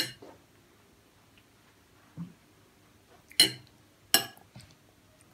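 Metal spoon clinking against a plate: a sharp clink at the start, then two more, about three and a half and four seconds in, each ringing briefly, with a soft knock between.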